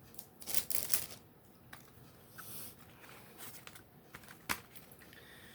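Plastic CD jewel case being handled and picked open: crinkling and tearing of leftover wrap or the sealing label across the top, with a sharp click of the case about four and a half seconds in.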